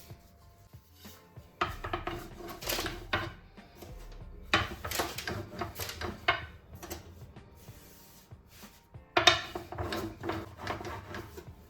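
Kitchen food-preparation handling noise: three spells of quick, rough strokes, each one to two seconds long.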